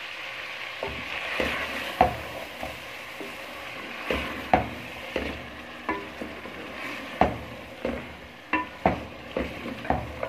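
Chicken pieces in spiced curry masala sizzling as they are fried and stirred in a metal pot, with a spoon knocking against the pot sides about once a second.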